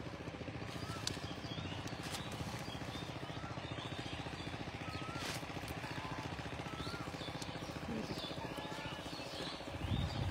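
Small birds chirping with short rising and falling calls, scattered throughout, over a steady low rumble; a brief low thump near the end.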